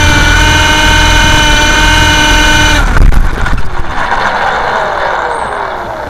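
MJX F639 coaxial RC helicopter's electric motors and rotors whining steadily, heard from its onboard camera. The whine cuts off suddenly about three seconds in, followed by a few knocks and rustling as it comes down on dry leaf litter, with falling tones as the rotors wind down.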